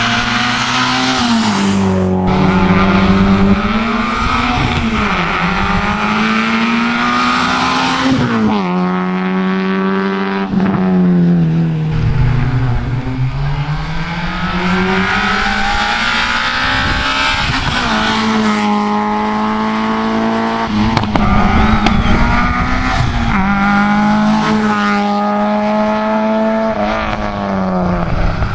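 Rally cars' engines revving hard as two or more cars drive through one after another. The engine note climbs and drops sharply many times with the gear changes and lifts for the corner.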